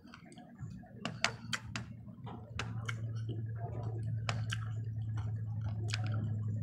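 Chewing of peanut M&M's, with sharp clicks as wooden chopsticks pick among the hard-shelled candies. A steady low hum comes in about two and a half seconds in.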